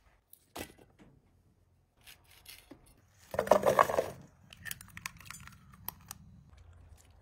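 Food-preparation handling sounds: a loud tearing, rustling burst about halfway through, followed by a run of sharp light clicks.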